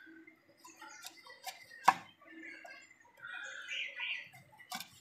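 A knife chopping raw chicken on a cutting board: a few sharp knocks, one much louder about two seconds in and two more near the end.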